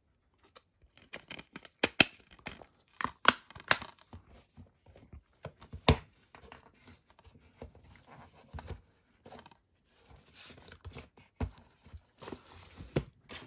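Disc packaging being handled by hand: paper and plastic rustling and crinkling, broken by irregular sharp clicks and knocks of the cases.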